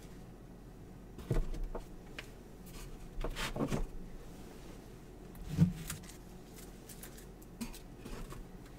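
Trading cards being gathered up and tidied on a table: a few scattered soft taps and rustles, with a sharper knock about halfway through.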